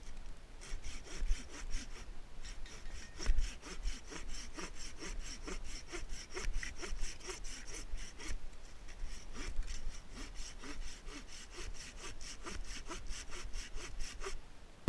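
Hand saw cutting through wood in quick, even back-and-forth strokes, with two short pauses.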